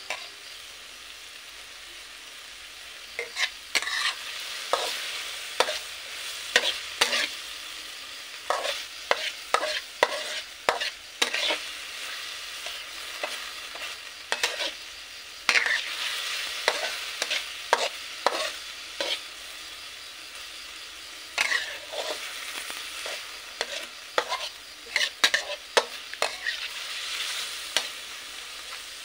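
Sliced meat and garlic sizzling in a metal wok while a metal spatula stirs it, scraping and clinking against the pan in frequent irregular strokes that begin about three seconds in.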